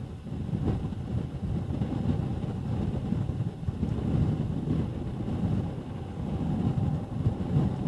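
Wind buffeting the microphone: an irregular, gusting low rumble.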